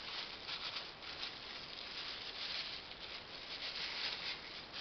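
Plastic packaging crinkling and rustling in irregular bursts as hands unwrap a small item from a clear plastic bag.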